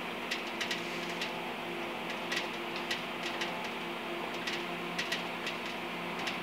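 A steady machine hum with scattered light clicks and ticks, about one or two a second.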